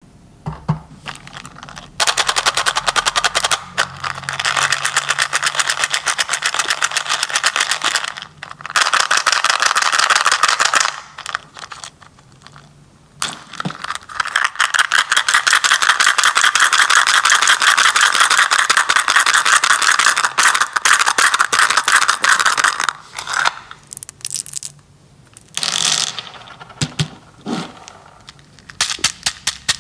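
Candy being handled for ASMR: long runs of rapid, dense crackling and rattling, each lasting several seconds, with short breaks between them and scattered crackles near the end.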